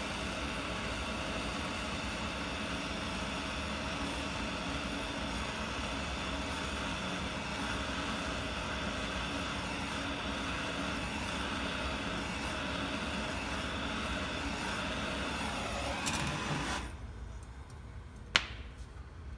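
Gas soldering torch flame hissing steadily as it heats a copper piece for soldering, then shut off about 17 seconds in. A single sharp click follows shortly after.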